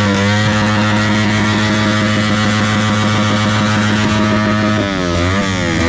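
Modified engine revved up and held at steady high revs, then blipped so the revs dip and climb back a few times near the end.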